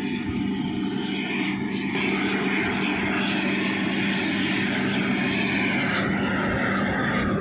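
Steady machine noise: a motor running with a constant low hum under an even rushing sound.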